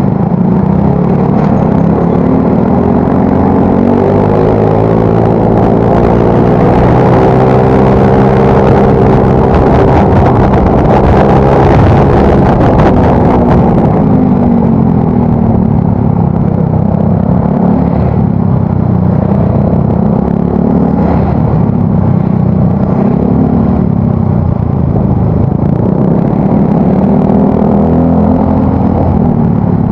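Yamaha Mio Soul GT scooter's single-cylinder engine running through an aftermarket exhaust while riding. Its pitch climbs steadily as it accelerates, peaks about twelve seconds in, then drops and keeps rising and falling with the throttle.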